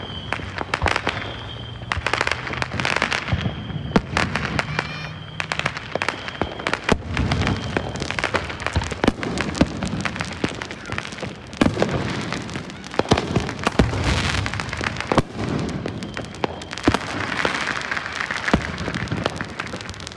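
Fireworks going off: a dense, irregular run of sharp bangs, booms and crackles, with some louder single reports standing out.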